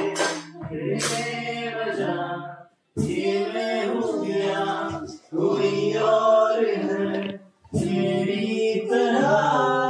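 Singing: a song with held, gliding notes, cut by two brief silences, about three seconds in and about seven and a half seconds in.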